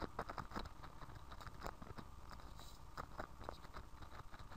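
Faint clicking of computer keyboard keys in an irregular run of keystrokes while typing.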